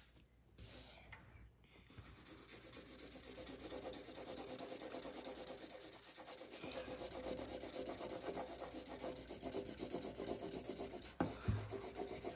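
Blue felt-tip marker scribbling rapidly back and forth on paper, colouring in a large area; it starts about two seconds in and goes on at an even pace. A single short knock comes near the end.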